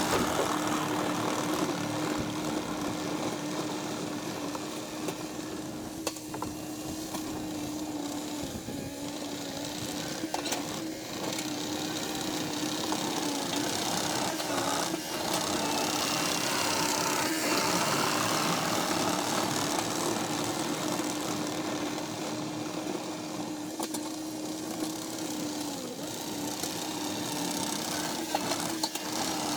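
Quadcopter camera drone hovering and climbing, a steady motor-and-propeller whine that dips slightly in pitch now and then.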